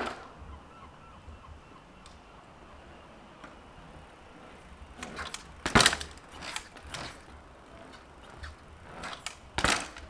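A Specialized Demo 8 downhill mountain bike knocking and clattering against tarmac as it is ridden and bounced. Several sharp knocks come about five to seven seconds in, the loudest near six seconds, and another hard one near the end.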